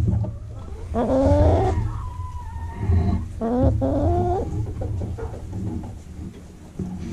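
A hen giving two drawn-out, wavering clucking calls, about a second in and again about three and a half seconds in, over a steady low rumble of camera and handling noise.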